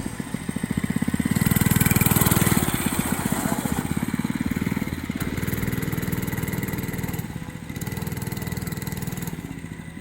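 An engine running, revving up about a second and a half in, then easing back to a steady run.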